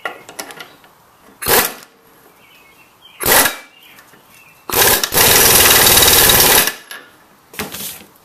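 Impact wrench hammering on the flywheel nut of a Briggs & Stratton 6 HP engine, spinning the crankshaft for a compression test. It runs in two short bursts, then a steady run of about two seconds, then a last short burst near the end.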